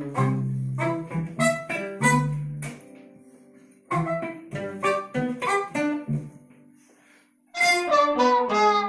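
Live waltz on zither, guitar and hurdy-gurdy: a run of plucked notes broken by short pauses. Near the end a trumpet comes in with sustained notes.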